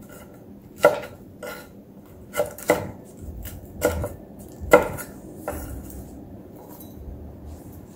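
Kitchen knife slicing chili peppers on a wooden cutting board: about seven separate knocks of the blade against the board, spaced irregularly, roughly a second apart.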